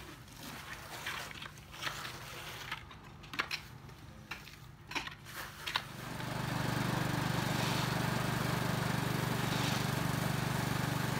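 Scattered light scrapes and clicks, then from about six seconds in a small-engine plaster mixer starts to be heard running steadily, mixing a batch of pool plaster.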